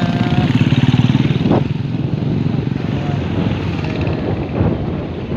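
Small motorcycle engines running as motorcycles pass close by, loudest in the first second and a half, then the vehicle's own engine and tyres rumbling along a gravel road.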